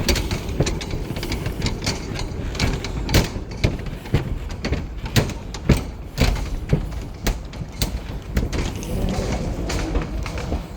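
Footsteps of many commuters walking on paving, irregular sharp clicks of shoes several times a second over a low steady rumble of city background.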